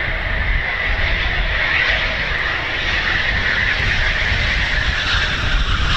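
Eurofighter Typhoon's twin EJ200 jet engines on landing approach: a steady rumble under a whine that falls slowly in pitch as the jet comes in over the runway.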